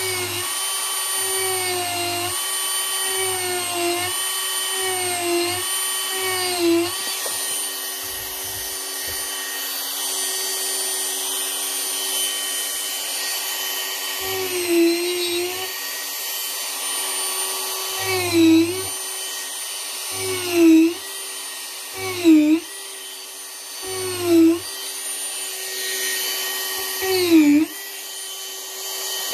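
Dremel rotary tool running at high speed, its steady whine dipping in pitch each time the bit bites into the wood and grinds, about a dozen times, with the cuts coming closer together in the second half.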